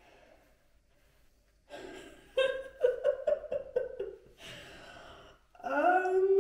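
A woman's wordless vocal reactions: a quick run of short, choppy breathy vocal bursts, about four a second, then a long breathy exhale, then a loud drawn-out vocal sound rising in pitch near the end.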